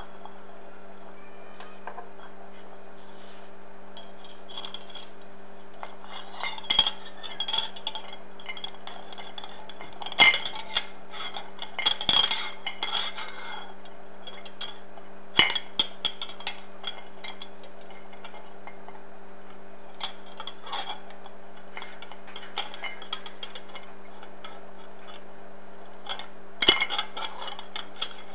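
Small, sharp clinks and taps of glass being struck as a wooden model-ship hull piece and the tool holding it are worked inside a glass bottle. They come in irregular clusters over a steady low hum.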